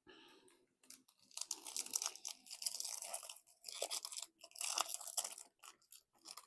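Crinkling and tearing of a foil trading-card booster pack wrapper being opened by hand, in two long crackly spells with short rustles and clicks between them.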